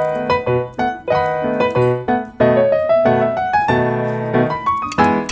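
Background piano music: a light melody of single struck notes, with a short climbing run of notes near the end.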